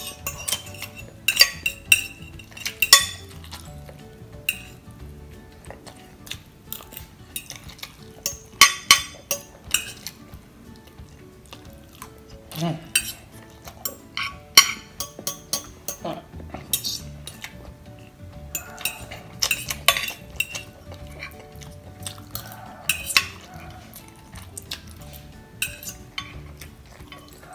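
Metal fork clinking and scraping against a glass baking dish in irregular taps, scooping up the last bits of noodles from the nearly empty dish.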